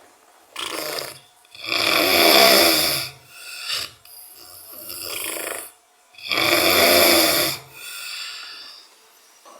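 A sleeping man snoring loudly, like a pig. Two big snores come about two and seven seconds in, with shorter, quieter snores and breaths between them.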